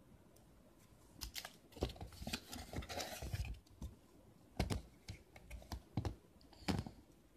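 Toy packaging being handled: shiny plastic wrapping crinkling and rustling with quick clicks for a couple of seconds, then three sharp knocks of plastic or card in the second half.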